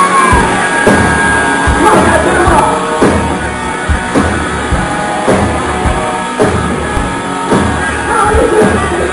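Live heavy metal band playing loud with distorted electric guitars and a drum kit, heavy drum hits landing about once a second. It opens on a held high note that bends down in pitch.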